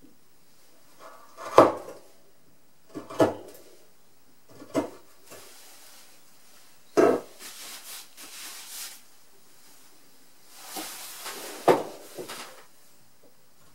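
Hand-pushed chisel paring very hard keyaki (Japanese zelkova) wood: a few crisp, sharp cuts a second or two apart, with softer scraping strokes in between.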